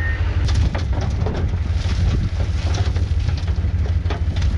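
Diesel engine of heavy earthmoving equipment running steadily, with an irregular rattling clatter that starts about half a second in. A reversing beeper sounds for a moment at the very start.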